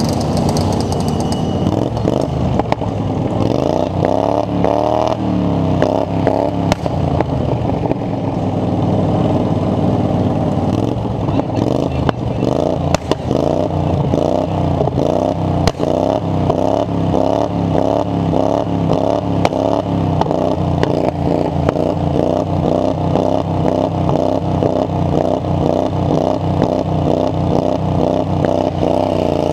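A lawn mower engine running hard, its pitch rising and falling again and again as the throttle is worked, with occasional sharp clattering knocks.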